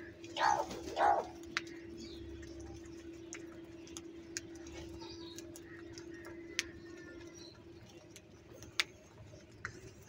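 Two harsh caws from house crows, about half a second and a second in, followed by scattered sharp taps of beaks pecking grain from a clay dish.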